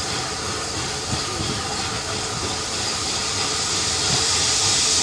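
Rebuilt Bulleid West Country Class steam locomotive moving slowly, with steam hissing at the cylinders; the hiss grows louder near the end.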